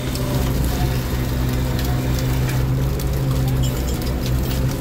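A purse seiner's engine and hydraulic net-hauling power block run steadily with a low, even hum. Scattered light clicks, taps and splashes come from the wet net and corks being hauled aboard.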